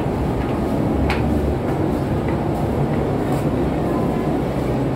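Steady low rumble of a passenger ship's machinery, with a sharp knock about a second in and a few faint footfalls on steel stairs.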